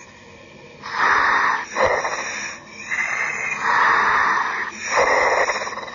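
A diver's breathing heard over the helmet communications line: about five loud hissing breaths, roughly one a second, through the diving helmet's breathing valve.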